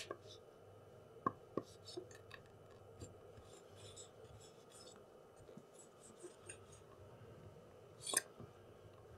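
Faint scraping and scattered small clicks of a thin metal blade working between an ASUS UM431D laptop's screen panel and its lid, breaking the screen's adhesive tape. The sharpest clicks come a little over a second in and just after eight seconds.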